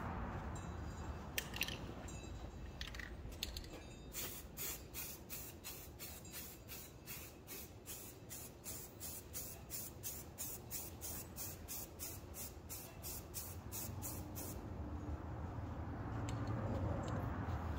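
Aerosol can of primer in use on a grinder's motor housing: a fast, even run of short, sharp high-pitched strokes, about three a second, that stops about three seconds before the end. A steady low rumble runs underneath.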